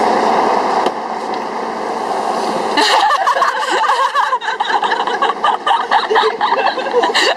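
Steady rushing noise of a passenger train standing at the platform, then about three seconds in someone breaks into laughter over it.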